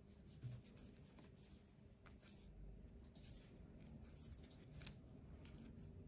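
Near silence with faint, scattered rustles and small clicks of paper yarn being worked with a crochet hook in single crochet stitches.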